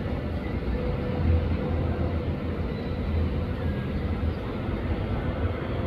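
Steady low rumble of outdoor city ambience, with no distinct bangs.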